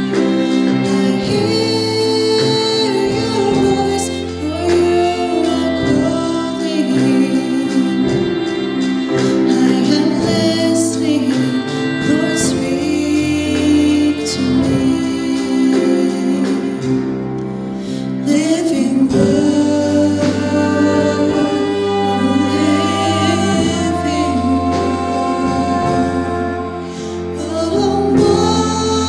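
Live worship band playing a contemporary worship song: women singing the melody over drums, keyboard, piano and violin, with a steady drum beat.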